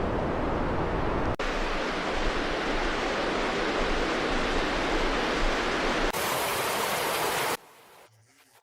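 Rushing floodwater: a steady, loud wash of water noise that changes abruptly twice, about a second and a half in and again about six seconds in, then falls away to a low level about a second before the end.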